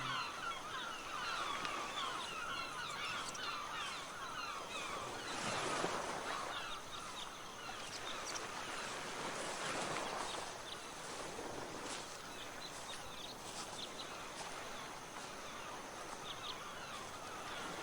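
Many birds chirping in quick, overlapping short calls, with two broad swells of rushing noise about six and ten seconds in.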